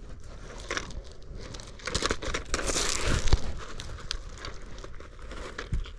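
Rustling, scraping handling noise with scattered small clicks as a porgy is held down and measured. It grows louder for a second or so, about two seconds in.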